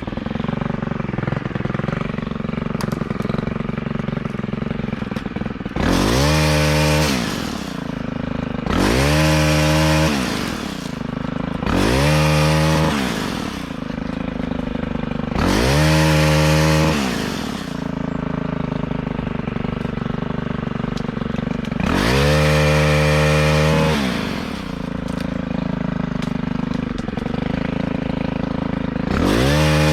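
Two-stroke chainsaw idling, then revved to full throttle six times for a second or two each, dropping back to idle between, as a dead limb is cut off.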